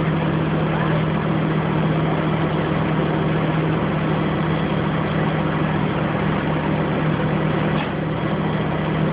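A crane's engine idling steadily: a constant low hum under an even drone.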